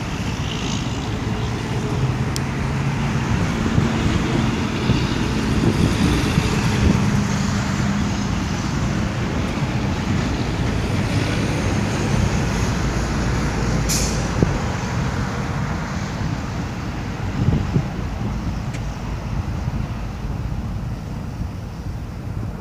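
Road traffic going by: vehicle engines running with a steady low rumble that eases off in the second half, and one brief high hiss about fourteen seconds in.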